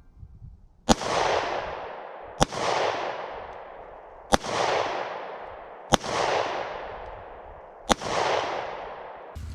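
Five gunshots about one and a half to two seconds apart, each sharp crack followed by an echo that dies away over about a second.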